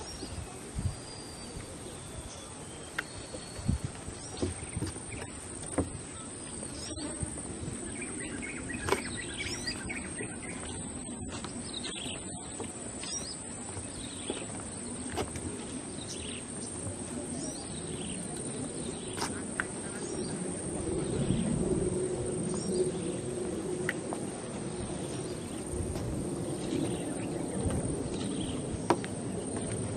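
Wild birds chirping and calling outdoors in scattered short calls, over a steady background of low rumbling noise that grows louder in the second half.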